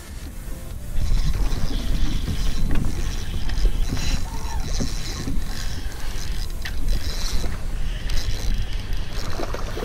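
Fishing reel working against a hooked redfish: the drag buzzing and ratcheting in uneven spells as the fish pulls on the bent rod, from about a second in. Under it runs a low rumble of wind or of the kayak and rod being handled.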